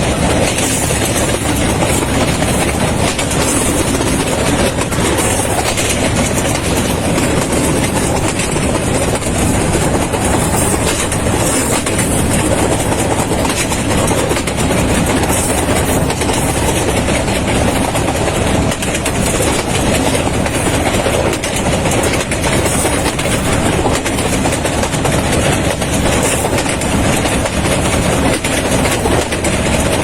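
Train running along the track, heard from inside a carriage: a steady, loud rumble of wheels on the rails.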